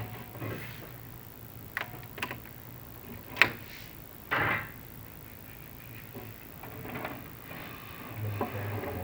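Chimney inspection camera knocking and scraping against clay flue tiles as it is lowered down the flue: a few sharp knocks, the loudest about three and a half seconds in, then a short rasping scrape, over a steady low hum.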